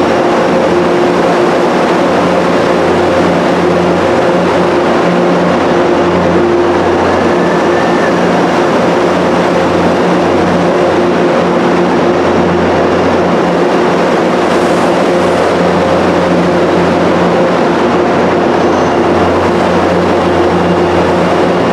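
MBTA commuter rail train of bilevel coaches moving slowly through the platform, over the loud, steady drone of a diesel locomotive engine.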